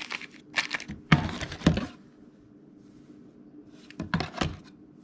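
Plastic packaging crinkling as small repair-kit parts are handled, in a few short bursts during the first two seconds and again about four seconds in.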